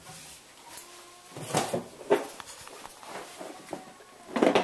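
Scattered soft knocks and rustles of someone moving about and handling things in a small room, with a louder cluster of knocks near the end.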